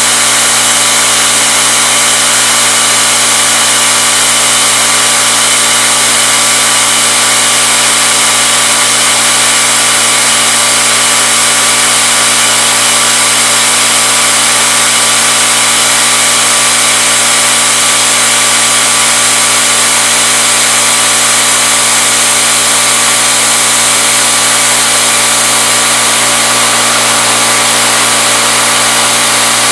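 CNC-retrofitted Bridgeport knee mill end-milling aluminum, its spindle turning at 2200 RPM with a 3/8-inch end mill in the cut: a steady machine hum and whine over the hiss of the cutting.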